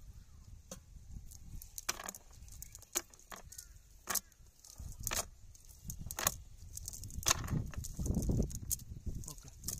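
Cast net being handled and shaken out over a wooden boat: scattered sharp clicks and clinks, likely the net's lead sinkers knocking together and against the boat, with a low rustling handling noise that grows louder near the end.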